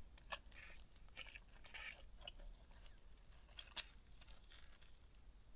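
A person quietly chewing a mouthful of barbecued meat, with faint scattered mouth clicks and one sharper click a little under four seconds in.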